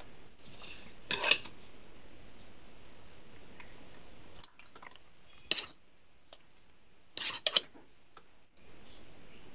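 Light clicks and knocks from handling a plastic funnel, a glass bottle and kitchen utensils while bottling sauce: one about a second in, one midway, and a quick cluster near the end, over a steady background hiss.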